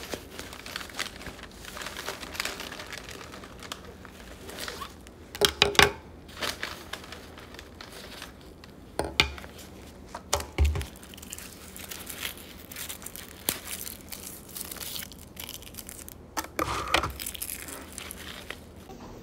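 Rustling and crinkling of a fabric bag being opened and rummaged through, with several sharp knocks as things are taken out and set on the desk; the loudest pair comes about five to six seconds in.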